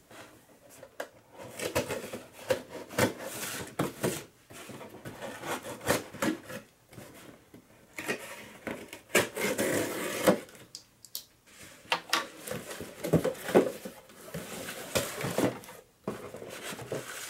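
A cardboard shipping box being opened by hand: a knife slitting the packing tape, then the cardboard flaps scraping and rustling, in irregular crackly bursts with sharp clicks.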